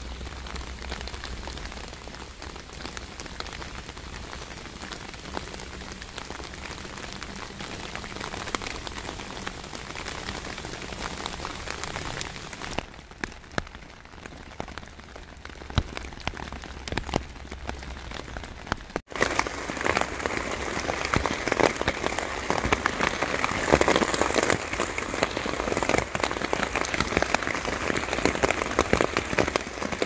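Rain falling, a steady patter of drops on water and wet ground with many scattered close drop clicks. About two-thirds of the way through, the sound cuts off for an instant and comes back louder and denser.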